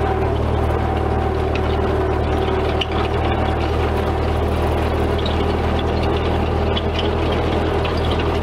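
1944 Ford 2N tractor's four-cylinder flathead engine running steadily as the tractor drives along, heard from the driver's seat.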